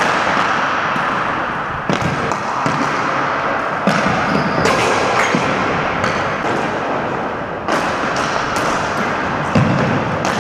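Ball hockey play on a hardwood gym floor: sticks clacking against the plastic ball and the floor in scattered sharp knocks, several in the second half, over a steady background noise.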